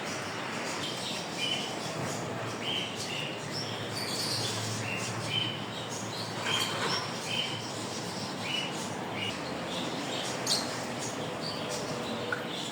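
Small parrots chirping: many short, high chirps, a few each second, over a steady background hiss.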